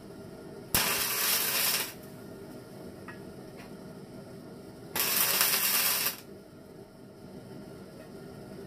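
Cordless drill boring a bolt hole in the snowblower's steel frame for the engine mount, run in two bursts of about a second each, four seconds apart.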